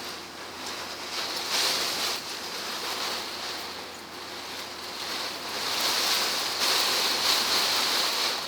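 Typhoon rain and wind beating on a camper van's body, heard from inside, swelling louder about a second and a half in and again for the last couple of seconds.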